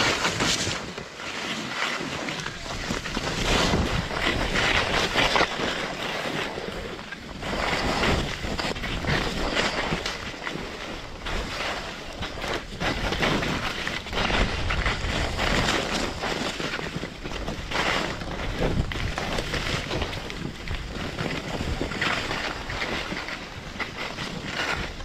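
Wind rushing over the microphone during a downhill ski run, mixed with the hiss and scrape of skis on chopped-up snow, rising and falling every second or two.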